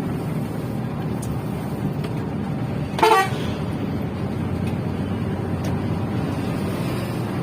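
A bus engine running steadily with a low rumble. One short horn toot sounds about three seconds in.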